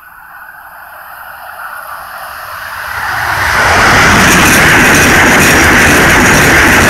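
Amtrak Acela Express electric high-speed trainset approaching and passing close by at speed. A rush of wheel and air noise grows for about four seconds, then stays loud as the cars go by.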